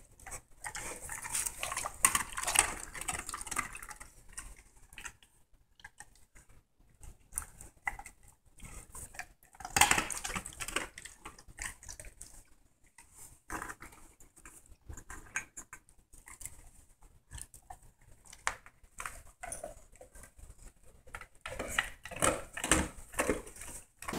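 Large dogs sniffing and shuffling about, with scattered, irregular clicks and clatters from metal dog bowls.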